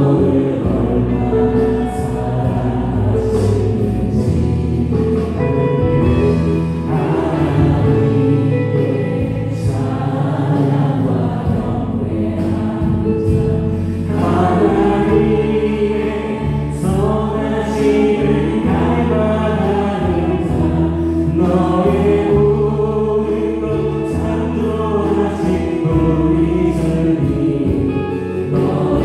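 Live church praise band playing a worship song: voices singing together over Yamaha Montage 8 keyboard, electric bass and drums.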